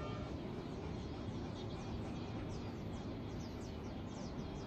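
A bird calling a rapid series of short, high, down-slurred notes, starting about a second and a half in and coming thicker toward the end, over a steady low outdoor rumble.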